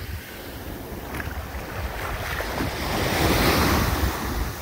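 Small waves breaking and washing up on a sandy beach, swelling to a peak about three seconds in, with wind rumbling on the microphone.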